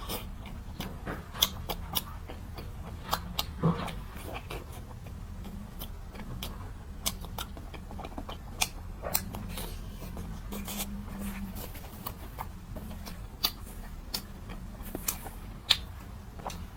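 Close-miked eating of a doughnut: irregular sharp mouth clicks and soft chewing over a steady low hum.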